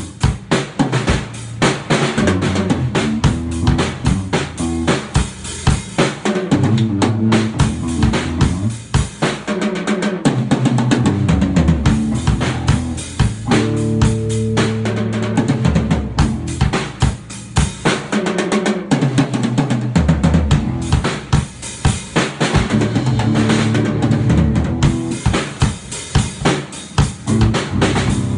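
Drum kit played live, kick, snare and cymbals in a steady groove, together with a bass guitar playing a riff of changing low notes.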